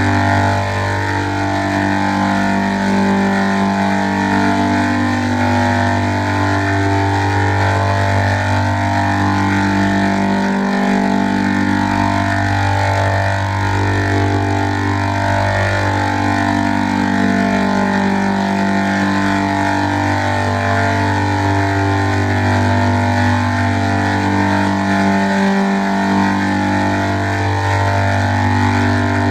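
Heavily pitch-shifted, layered audio that plays like electronic music. A low bass drone holds under chords that step to new notes every second or two. The drone drops out briefly about ten seconds in and again near the end.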